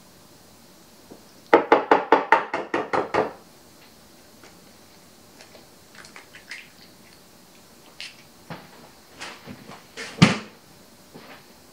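A silicone spatula beating batter in a glass bowl, a quick run of about a dozen clacks against the glass. Then an egg is cracked and emptied into a ceramic bowl, with small clicks of shell on the rim, and one louder knock near the end.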